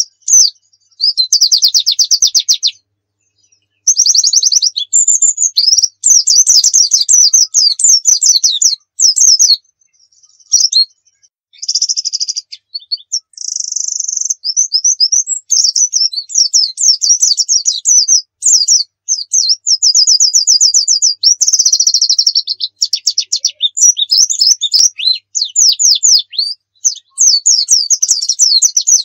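A pleci dakun white-eye in full song: long runs of high-pitched, very rapid trills and chattering phrases delivered in bursts. The song breaks off briefly a few times, with the longest pause about ten seconds in.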